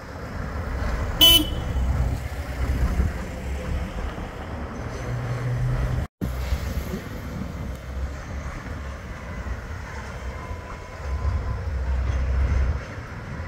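Street traffic rumbling past, with a short sharp horn toot about a second in. Partway through, the sound cuts out completely for a moment.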